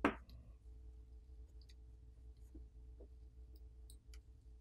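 Faint, scattered light clicks and ticks of fingers handling the opened smartphone's plastic frame and parts, after a short louder noise at the very start.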